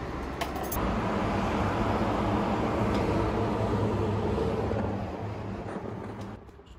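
Road traffic: a motor vehicle's engine and tyres, a steady rumble with a low hum that swells a little under a second in and falls away sharply near the end.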